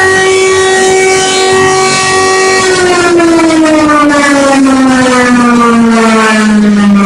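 Emergency alert siren sounding a steady tone rich in overtones. About two and a half seconds in, its pitch begins a slow, even fall, like a siren winding down.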